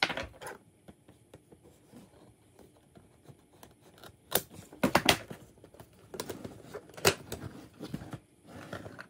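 Hands handling and opening a cardboard Nendoroid figure box: scattered sharp clicks, taps and short scrapes of the cardboard flap and inner packaging, mostly from about four seconds in.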